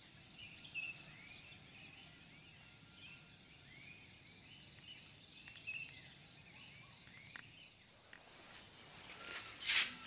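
Birds calling: many short rising chirps repeated over a faint steady background. Near the end, a burst of loud rustling noise.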